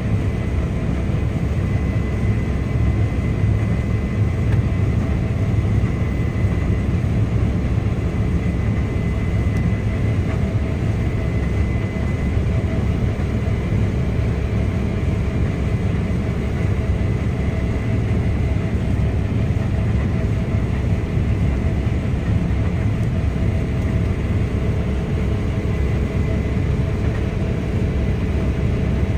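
Case IH Axial-Flow 9250 combine harvester running steadily while harvesting wheat: a deep, even drone with a faint high whine over it.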